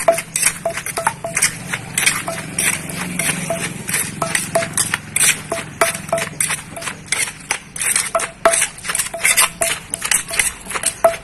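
Wooden pestle pounding green papaya salad in a clay mortar, a steady run of knocks at about two to three strokes a second, each with a short ringing note from the mortar.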